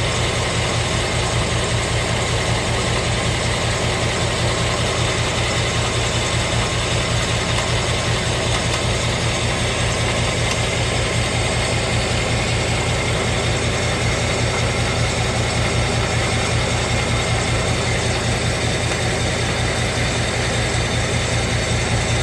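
2017 Ford Mustang 5.0 V8 idling steadily with a fast, even, ratchet-like ticking: the "BBQ" or "typewriter" tick that started after the car's first oil change.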